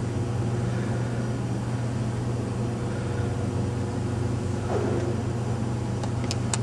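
A steady low mechanical hum, like a building's air handling, fills a large reverberant room. A few light clicks come near the end.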